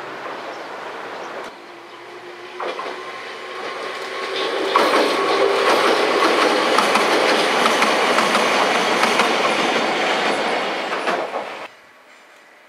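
Wakayama Electric Railway's red two-car 'Umeboshi Densha' electric train passing over a girder bridge. Its wheels clatter over the rail joints, growing louder over a couple of seconds, then the sound cuts off suddenly near the end.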